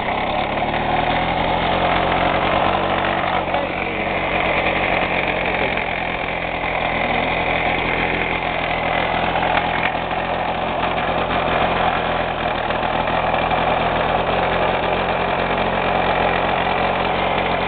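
Piaggio Ciao moped's 49 cc two-stroke single-cylinder engine running steadily, warmed up.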